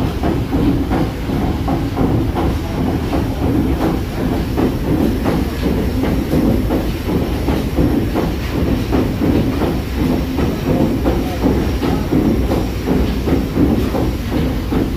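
The paddle steamer Waverley's three-cylinder diagonal triple-expansion steam engine running under way, a loud, steady, rhythmic mechanical clatter of its cranks and rods over a low rumble.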